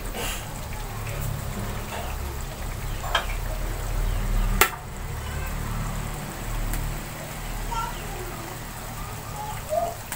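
Chicken pieces frying in a wok of rica-rica spice sauce over a gas burner: a faint sizzle over a low steady rumble, with two sharp knocks about three and four and a half seconds in.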